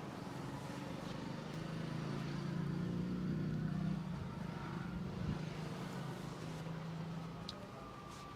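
A passing motor vehicle's engine, a low pitched sound that grows louder over the first few seconds and fades away near the end.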